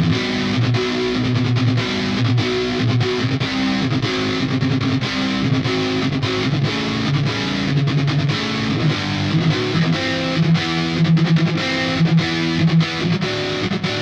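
Sterling JP70D seven-string electric guitar played with distortion through a Line 6 POD HD500 amp modeller: a fast rhythmic riff of chords and single notes.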